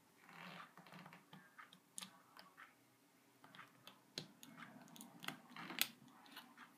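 Faint handling noise of a power cord and plug being fitted to a wall socket: soft rustling with a scattered handful of small clicks, the sharpest near the end.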